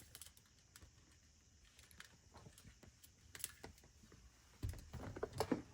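Faint scattered clicks and rustling of an LED light strip and its wires being handled inside a car, growing louder with a few knocks near the end.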